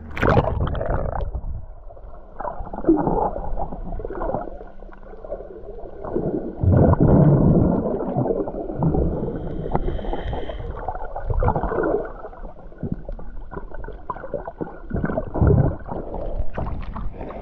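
A splash as the microphone goes under water. Then muffled underwater sound: water churning and bubbles gurgling in irregular surges, with the loudest surge a few seconds in.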